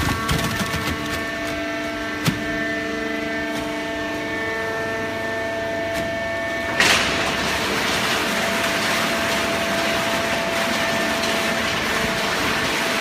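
Hydraulic baling press for shredded paper running: a steady motor and pump hum with several held tones. There is a sharp knock about two seconds in, and a sudden burst near seven seconds, after which a steady hiss takes over.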